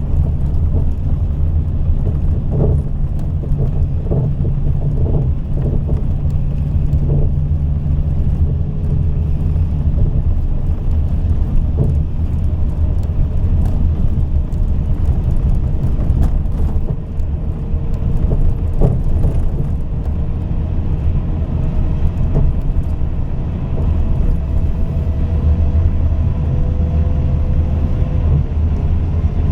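Scania K420 coach's inline-six diesel engine running steadily with a deep low drone. A faint higher whine sits over it in the second half and stops shortly before the end.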